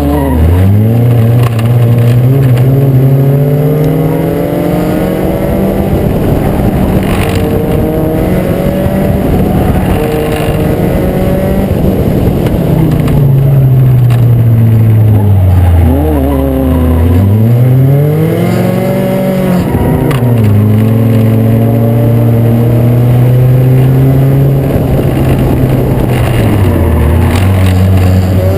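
Acura Integra race car's four-cylinder engine at full racing pace, its note climbing hard as it accelerates, holding, then dropping when it lifts off. This happens several times over, with the deepest drops about halfway through and near the end.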